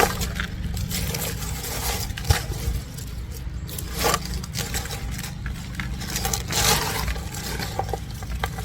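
A bucket of potting soil being tipped and emptied, with soil scraping and sliding and scattered knocks as it is dumped out to harvest container-grown potatoes. A steady low rumble runs underneath.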